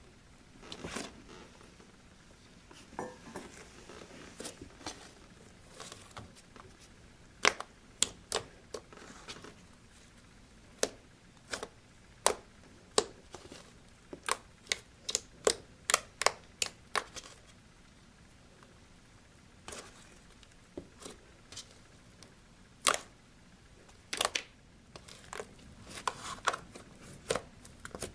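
Fluffy slime being squeezed and poked by hand, making sharp, irregular pops and clicks as air pockets in it burst, sometimes several a second.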